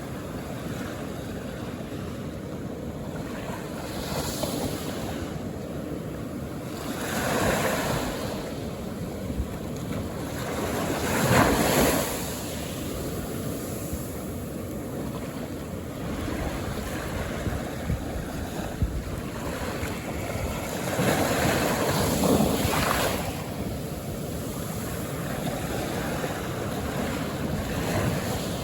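Calm ocean waves washing onto the shore: a steady surf hiss that swells as each wave breaks, every few seconds, with the biggest wave about eleven seconds in.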